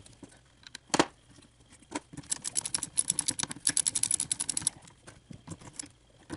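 Small bolts being fastened onto a wiper transmission's linkage bar, played sped up. There are single sharp metal clicks about one and two seconds in, then a dense run of quick light clicks for about two seconds in the middle.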